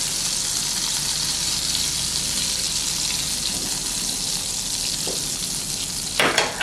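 Butter and oil sizzling steadily in a hot frying pan where prawns are frying, with a brief clatter about six seconds in.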